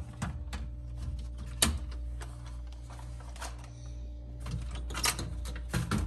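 Plastic toy model cars being handled on the glass shelves of an open refrigerator: scattered clicks and knocks, loudest about one and a half seconds in and again about five seconds in, over the fridge's steady low hum.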